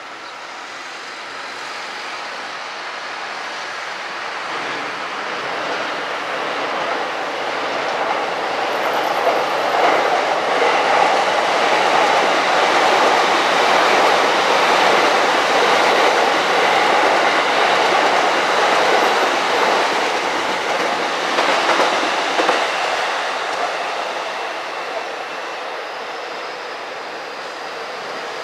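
Electric train passing on the tracks: it grows louder as it approaches, runs past for about ten seconds with wheels clicking over the rail joints, then fades as it moves away.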